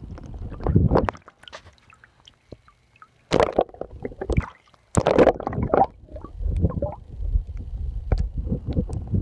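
Muffled water sloshing and gurgling around a submerged camera, with irregular bumps and knocks against it over a low rumble. The loudest surges come about a second in, near the middle and just after.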